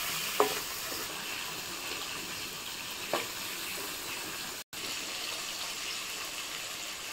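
Fish pieces sizzling steadily as they fry in mustard oil in an iron wok, with a couple of light spatula knocks against the pan, about half a second and three seconds in.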